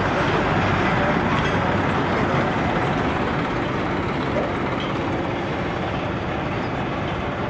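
Tractor-powered wheat thresher running steadily along with the tractor's engine, a loud, dense mechanical noise that eases slightly about three seconds in.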